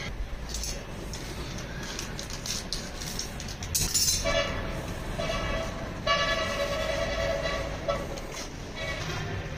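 Paper rustling and small handling clicks, then from about four seconds in a steady horn-like tone in three blasts, the last the longest.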